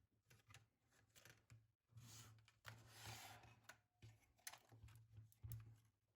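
Faint handling noise from IBM Model M keyboard parts being moved: scattered light clicks and knocks of plastic and metal, with a longer scraping rustle about two seconds in.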